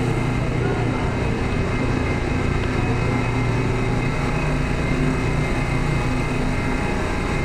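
Steady low hum of a Seoul Line 2 subway train standing at the platform with its doors open, heard along the subway platform.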